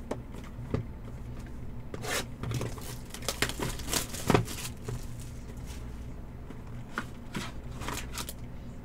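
Trading-card packaging being handled and torn open: scattered short tears, rustles and light taps over a steady low hum.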